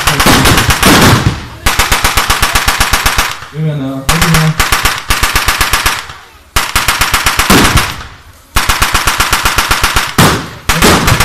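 Automatic gunfire from a machine gun in a battle reenactment, firing rapid shots in long bursts of one to two seconds with short pauses between them. A man's shout is heard in one pause about three and a half seconds in.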